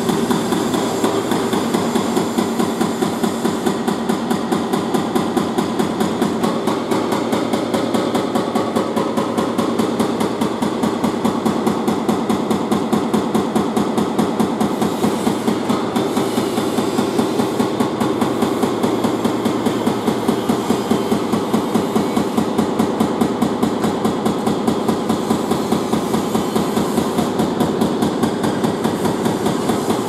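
Hydraulic breaker (hydraulic hammer) on an excavator arm hammering into a brick wall, a fast, steady train of blows, several a second, that never stops.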